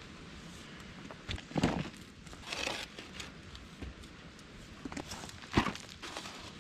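Shovel digging crumbly clay out of a pit: the blade scraping and chopping into the clay and clods falling, with heavy thuds about one and a half seconds in and again near the end.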